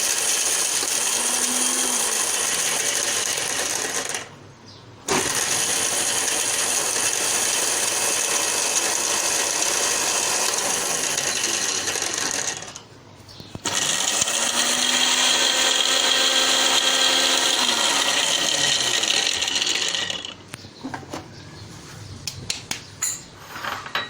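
Electric blender grinding almonds and pistachios with milk, run in three bursts with two short pauses, about four and thirteen seconds in. It stops near the end, followed by a few light clinks.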